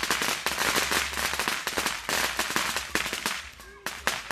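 A string of firecrackers going off in a rapid crackling barrage of sharp pops, easing into a brief lull near the end before the popping starts again.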